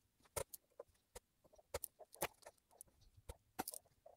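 Faint, irregularly spaced small clicks and ticks of a hand tool with a TS30 five-point security bit working the bolts of a BMW N42 exhaust VANOS unit held in a vise, with gloved hands handling the parts.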